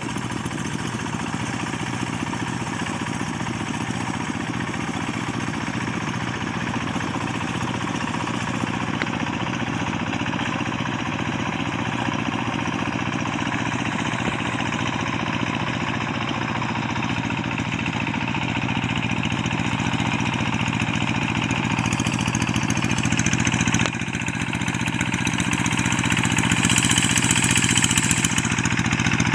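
Rice-field hand tractor's single-cylinder diesel engine running steadily under load while working the paddy, gradually growing louder.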